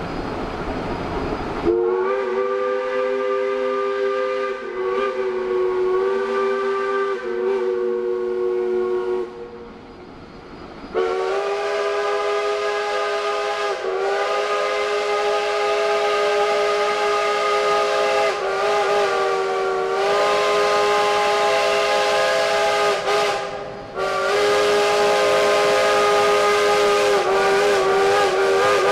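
Steam whistle of a Shay geared steam locomotive blowing three long blasts of a steady multi-note chord, the middle one about twelve seconds long with brief dips, as the locomotives approach.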